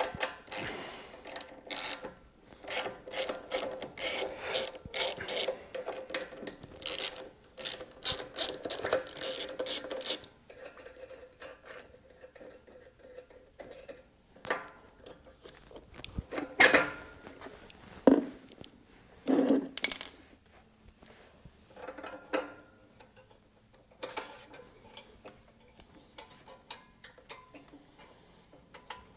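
Small hand ratchet clicking in quick strokes for about ten seconds as a bolt is worked on a small engine. After that come scattered light clicks and knocks of metal parts being handled.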